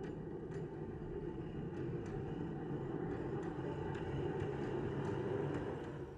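Garden-scale Accucraft County Donegal diesel railcar model running along 45 mm gauge track: a steady low rumble of wheels and drive, with scattered sharp clicks, growing louder as it approaches.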